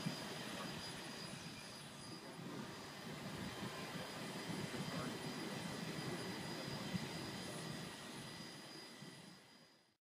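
Santa Fe 3751, a 4-8-4 steam locomotive, standing in steam with a steady low roar and hiss and a thin, steady high whine. The sound fades out near the end.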